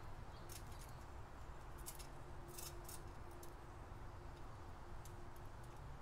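Faint sharp clicks and taps in small clusters from a common grackle feeding at a metal tube seed feeder, its beak and claws on the seed ports and perches. They sound over a steady low background hum.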